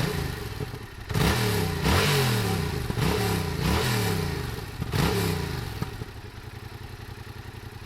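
An engine is revved about five times in quick rises and falls, then settles back to a steady idle.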